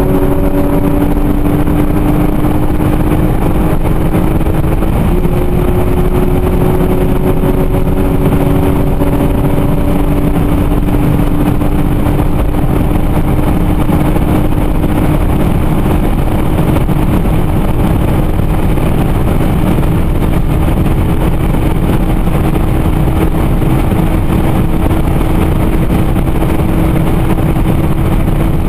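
Peugeot RCZ R's 1.6-litre turbocharged four-cylinder engine pulling at full throttle in a high gear near top speed, its note rising slowly and steadily as the car accelerates, heard from inside the cabin under heavy wind and road noise.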